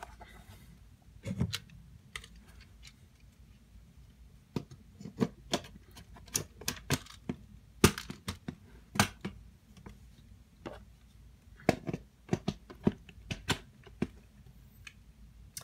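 Hard plastic clicks and taps as a toy TIE Fighter is put back together by hand, its parts snapping and knocking against each other. There is a duller knock about a second and a half in, then a run of irregular sharp clicks through the middle.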